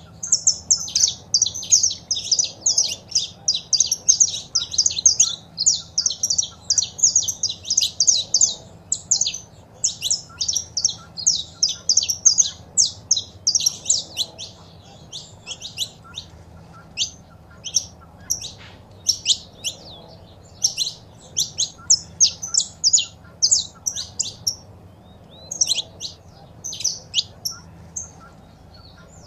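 Saffron finch vocalizing with high, quick chirped notes. The notes come in a dense rapid run for about the first half, then thin out to scattered single notes and short groups.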